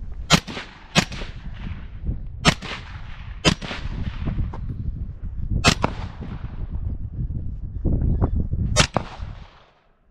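CZ Bren 2 rifle in 5.56 fitted with a Rugged suppressor, fired six single shots at uneven intervals. Each shot is a sharp crack with a short echoing tail, pretty soft for a rifle.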